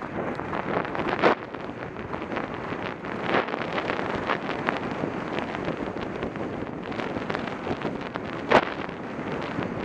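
Wind rushing over the microphone of a rider's head-mounted camera as the horse moves across the field, with a few short, sharp, louder moments.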